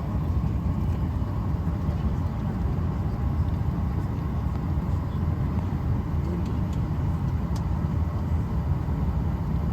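Steady low rumble of an airliner cabin: engine and airflow noise, unbroken, with a faint steady tone above it.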